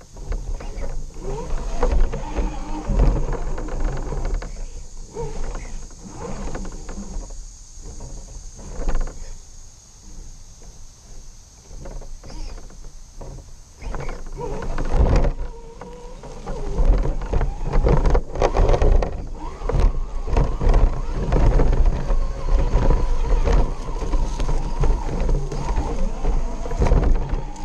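RC rock crawler's motor and drivetrain running under load, with its tyres and chassis scraping and knocking against rock, heard through a camera mounted on the truck. It eases off about a third of the way in and grows louder and busier from about halfway.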